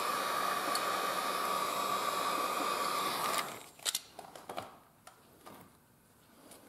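Hot air gun on a low setting running steadily, a blowing hiss with a high steady tone, switched off about halfway through; a few light clicks and knocks follow.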